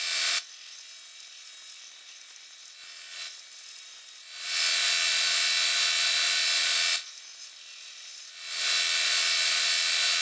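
Ryobi belt sander running with an 80-grit belt while a hardened steel file is pressed against it to grind its teeth off: a grinding pass ends right at the start, then two loud grinding passes of about two and a half seconds each, with the sander's quieter running sound between them.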